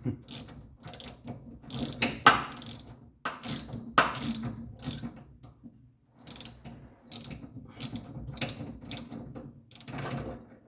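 Hand ratchet wrench clicking through repeated short strokes, with a brief pause about six seconds in, as a long-threaded steering rack fastener on a Triumph TR3 is worked loose.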